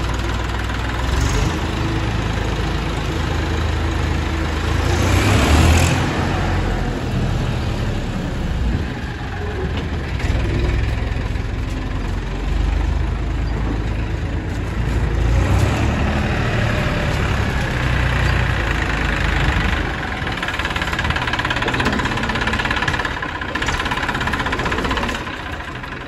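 Massey Ferguson tractor's diesel engine running as the tractor pulls a hitched straw reaper out, its level swelling and dipping a little with the throttle. The engine sound fades near the end.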